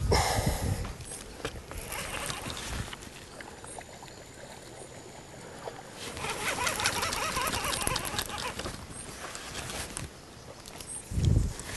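A cast with a baitcasting rod and reel, with a burst of swish and line noise at the start. About six seconds in, the reel is cranked in, its gears giving a rapid fine whirring tick for several seconds.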